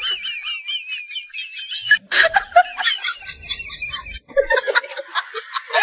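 A high-pitched warbling, chirp-like sound effect, then a sharp click about two seconds in followed by chattering, snicker-like sounds.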